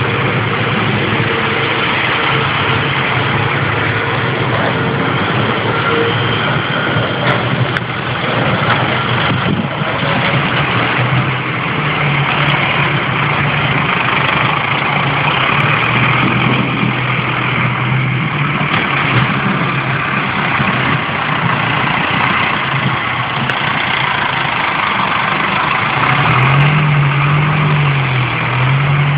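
Diesel engines of snow-plowing tractors, a Case IH 180 CVX and then a Valtra 6350 with V-plows, running steadily as they push snow. The engine note rises and falls a couple of times near the end.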